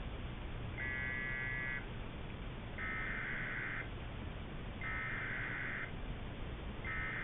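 Emergency Alert System SAME header: bursts of high, warbling digital data tones, each about a second long with a second's pause between. Three bursts start about a second in, and a fourth begins near the end, over steady broadcast hiss. This is the coded header that tells receiving stations and radios the alert's type, area and time at the start of an EAS activation.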